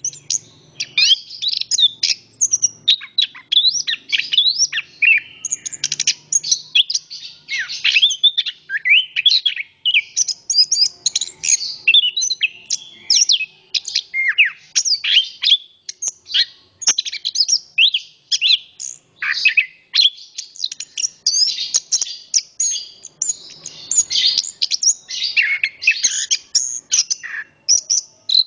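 Chestnut-capped thrush (anis kembang) singing a long, unbroken song of rapid, varied whistled notes and quick pitch sweeps, with hardly a pause.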